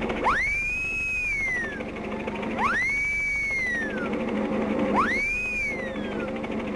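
A whistle-like tone sounds three times, about two and a half seconds apart: each time it shoots up quickly, holds high and slides slowly back down. A steady low hum runs beneath it, a speed sound effect on an old cartoon soundtrack.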